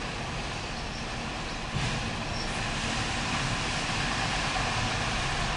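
Empty autorack freight cars rolling past: a steady, noisy rumble and rattle of steel wheels on the rails, which grows a little louder about two seconds in.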